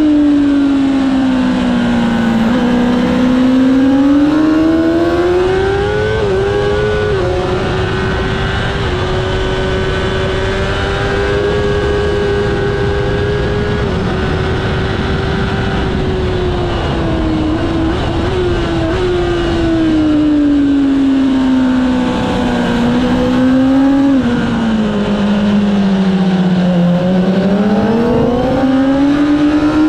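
Onboard sound of a Kawasaki ZX-10R superbike's inline-four engine at racing pace, over steady wind rush. The revs drop, climb and hold high and steady for a long stretch in the middle, then fall in small steps as it shifts down, dip lowest a few seconds before the end and rise again on the throttle.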